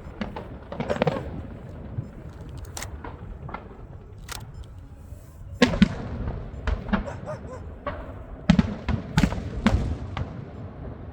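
Aerial fireworks bursting in an irregular string of bangs and crackles, with louder clusters of booms about six seconds in and again near the end.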